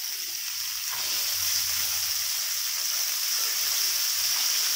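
Mustard oil sizzling in a frying pan around pieces of potato and pumpkin and freshly added green peas: a steady hiss that grows a little louder.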